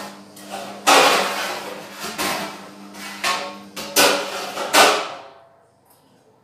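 Metal pots and dishes knocking and clanking as they are handled during dishwashing, about five loud clanks with ringing after each, over a steady low hum. The clatter stops a little after five seconds in.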